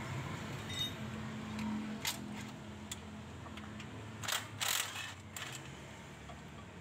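Metal clicks and scrapes as the propeller shaft of a Toyota Avanza is worked into the rear of the transmission by hand, the loudest cluster of clicks about four to five seconds in, over a steady low hum.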